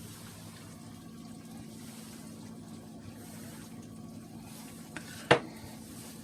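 A pot of chicken and vegetables cooking on the stove, with a steady low hum and a faint simmer. About five seconds in comes one sharp clack of a utensil against the pot, the loudest sound here.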